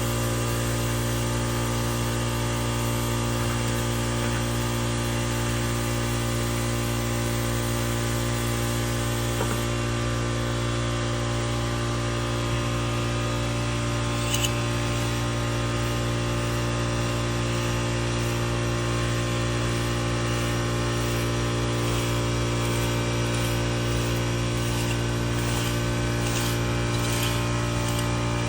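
A motor running steadily, a constant hum with several held tones that does not change, and a faint click about halfway through.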